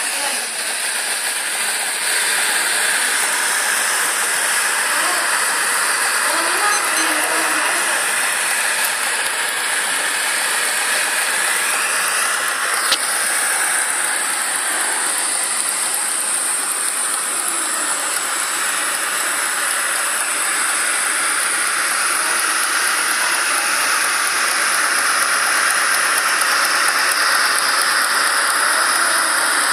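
Steady hiss of a small gas burner flame heating the hot cylinder of a homemade Stirling engine, with a single click about thirteen seconds in.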